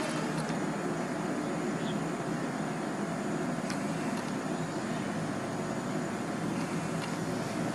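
EMD WDP4B diesel-electric locomotive's 16-cylinder two-stroke engine working hard as it accelerates a passenger train: a steady, unbroken engine drone.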